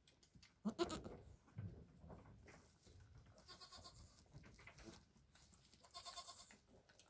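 Nigerian Dwarf goats calling softly: a short bleat about a second in, then two faint, higher-pitched calls, one around halfway and one near the end.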